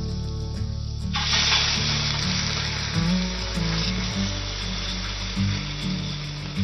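Food sizzling in a hot frying pan, a loud steady hiss starting about a second in, over background music.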